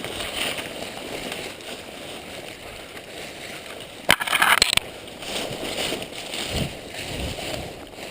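Crunching and rustling of movement through dry leaves and brush. About four seconds in comes one short, sharp burst of noise lasting under a second.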